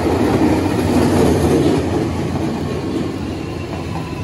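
Tobu 500 series Revaty limited-express electric train running past at close range as it pulls into the station, a steady rumble of wheels on rails that is loudest about a second in and eases slightly after.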